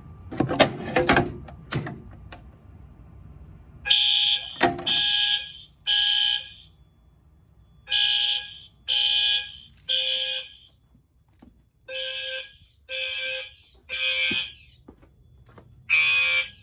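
A few sharp clunks as the T-bar pull station is pulled, then fire alarm horns sound in the temporal-3 evacuation code: three blasts about a second apart, a pause, and the group repeats.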